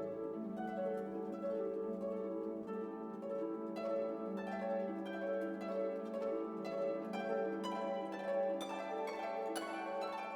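Instrumental background music: plucked-string notes, harp-like, over held tones, with the notes coming more often towards the end.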